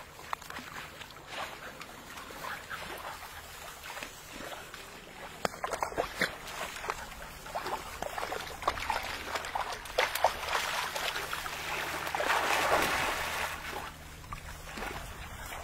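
Dogs swimming: light splashing and paddling in the water, with scattered close clicks and rustles and a louder stretch of splashing near the end.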